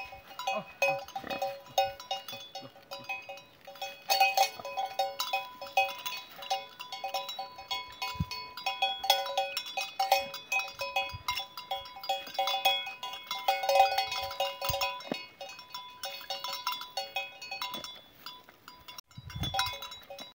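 Many bells on a flock of sheep jangling and clanking irregularly as the animals move.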